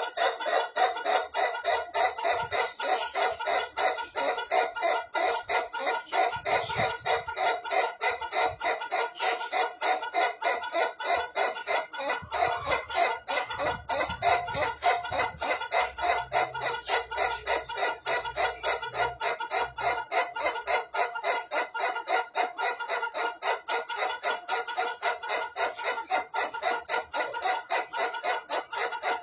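White rooster crowing one very long, unbroken crow made of rapid, evenly repeated pulses, about four a second, in the cackling, laughing style.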